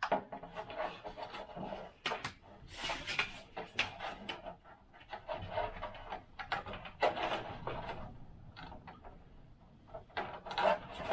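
1 mm piano wire being worked through holes in 3D-printed plastic wing parts: irregular scraping and rubbing with sharp clicks and taps.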